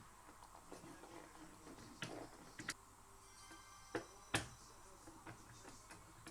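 A handful of sharp, separate clicks and taps of tools and small parts being handled while the coffee machine's brewer-unit motor is bolted down with a bracket, the loudest about four seconds in, over a low background.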